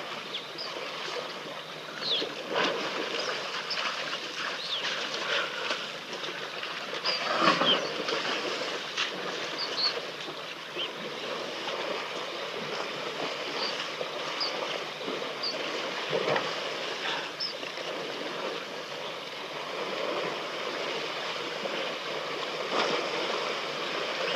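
Elephants wallowing in a muddy waterhole, with occasional sloshing and splashing over a steady outdoor hiss and scattered short, high bird chirps.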